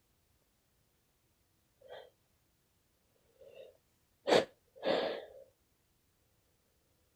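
A sneeze: two short catching breaths, then a sharp explosive burst about four seconds in, followed at once by a longer voiced 'choo'.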